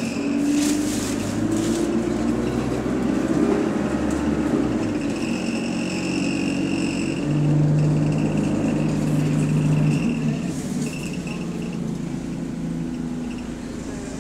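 Alexander Dennis Enviro200 bus driving, heard from a rear seat in the saloon. Its engine and drivetrain give a low hum whose pitch rises in the first couple of seconds and swells again about halfway through, while a thin high whine sounds from about five to eleven seconds in.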